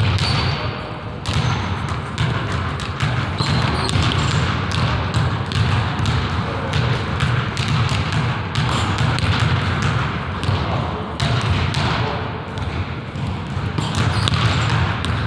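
Basketballs bouncing on a hardwood gym floor, with irregular thuds following one another throughout, over a steady low rumble.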